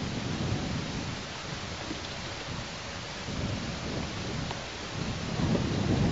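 Wind buffeting the nest camera's outdoor microphone: a rough, gusting rumble over a steady hiss, swelling louder about five seconds in.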